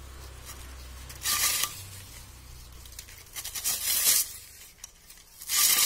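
Dry coconut leaflets being torn from their midribs by hand to free the broom sticks (eerkil). Three short tearing strokes: one about a second and a half in, a ragged one around four seconds in, and one at the end.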